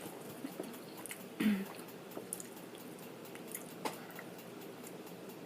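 A person chewing food with soft, wet mouth sounds and a few light clicks, and a brief hum about a second and a half in.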